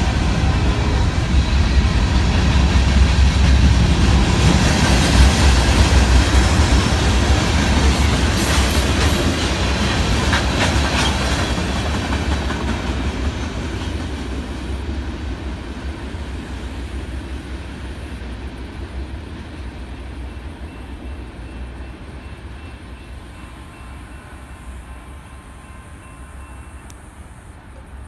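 Freight train cars rolling along the track, their wheels running on the rails, loudest a few seconds in and then fading steadily as the end of the train moves off into the distance.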